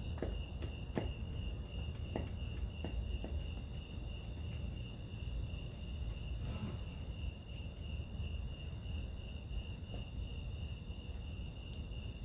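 Crickets chirping in a steady, high, pulsing trill over a low rumbling noise, with a few faint clicks in the first few seconds.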